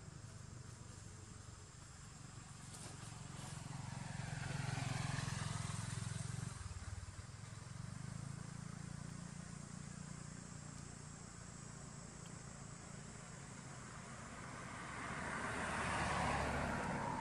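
Motor vehicles passing by. An engine hum swells and fades about four to six seconds in, and a second vehicle's rushing pass-by noise rises to a peak near the end.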